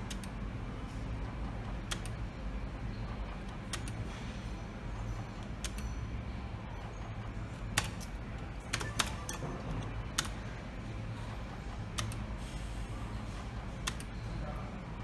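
Sharp clicks from a Merkur Triple Chance slot machine, about one every two seconds as each spin is played, over a steady low hum.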